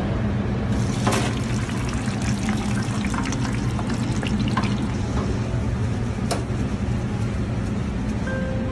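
Raw French fries frying in a commercial deep fryer basket, the hot oil bubbling and sizzling steadily with fine crackles. A tuneful chiming melody begins near the end.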